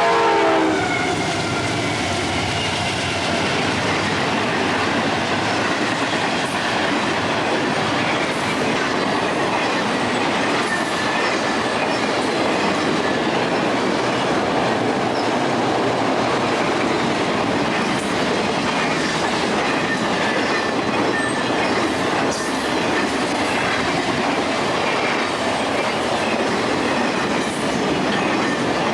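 A train passing: its horn cuts off with a drop in pitch in the first second. The wheels then roll steadily on the rails, clicking over the joints.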